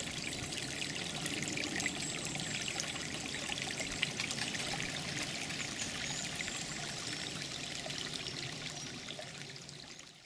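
Water trickling and splashing in a small stream, a steady babbling that fades out near the end.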